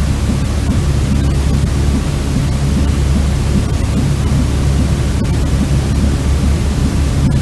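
Continuous white noise, a steady, unchanging rushing hiss that is heaviest in the low end.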